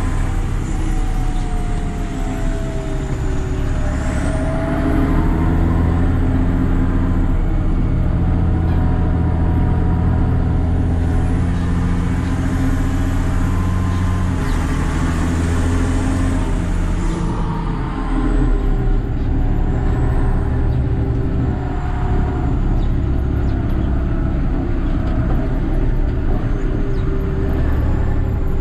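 Massey Ferguson 6180 tractor's diesel engine with a straight-pipe exhaust, pulling along at road speed, heard from inside the cab. The engine note rises about four seconds in, drops around seventeen seconds, then holds steady.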